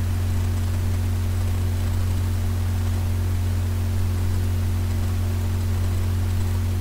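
Steady low electrical hum with a couple of fainter higher hum tones and an even hiss underneath, unchanging throughout: the recording's own noise floor with no other sound.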